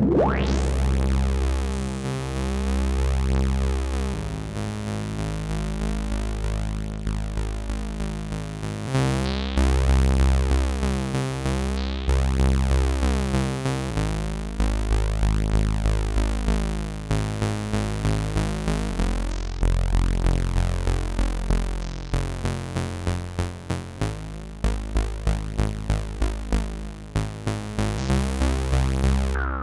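Analogue Solutions Polymath paraphonic analog synthesizer playing a sequenced pattern over a deep bass, the chord and bass changing every few seconds. In the second half it turns to short, fast pulsing notes, about three a second.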